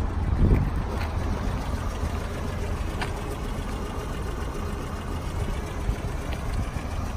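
Four-cylinder carburetted engine of a 1971 BMW 2002 idling steadily, freshly rebuilt and running smoothly.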